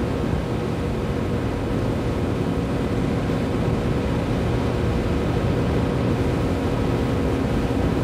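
Steady, even background noise with a faint low hum, at a constant level throughout. No distinct tool strokes stand out.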